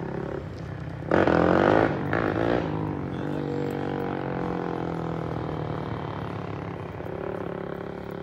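An engine revs sharply about a second in, briefly again a moment later, then runs on steadily with its pitch slowly falling.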